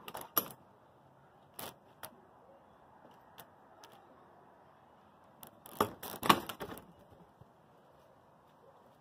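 Metal gate latch on a vinyl fence gate clicking as it is lifted open, with a few lighter clicks after. About six seconds in comes a louder run of clacks as the gate swings shut and the latch drops onto its keeper bar.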